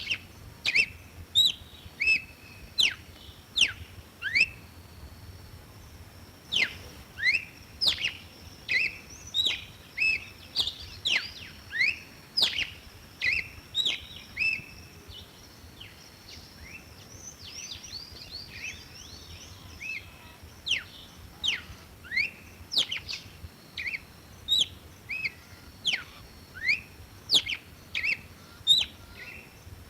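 Red-cowled cardinal singing: a rapid run of short, sharp whistled notes, each sweeping steeply up or down, delivered in phrases with a short pause about five seconds in and a sparser, quieter stretch past the middle.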